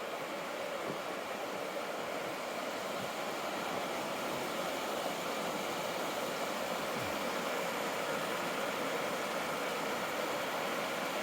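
Steady rush of a mountain river flowing over rocks in a gorge, an even hiss with no breaks.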